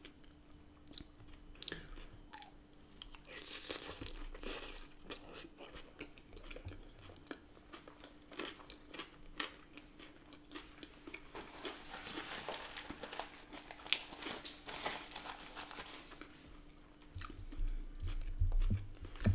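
Close-up chewing and crunching of a salad-style burrito bowl with lettuce, cucumber and onion, eaten by mouthfuls, with many small wet crackles and clicks. It is densest through the middle, over a faint steady hum.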